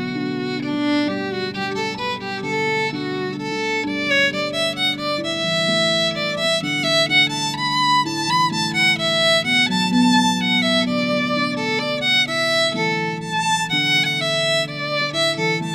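Instrumental music: a flowing melody over sustained low notes.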